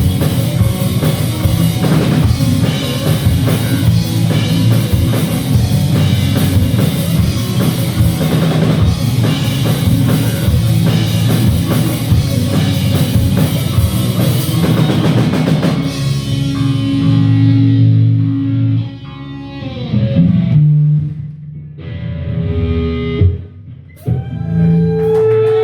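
Rock band playing live, with drum kit and guitar. About sixteen seconds in, the full band drops away, leaving a guitar playing scattered held notes with short gaps between them.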